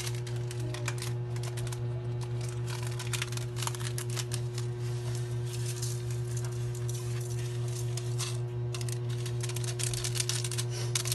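Rapid small clicks and crackles as seasoning is sprinkled by hand into an aluminium pot of raw milkfish and vegetables, with a brief lull near the end, over a steady low hum.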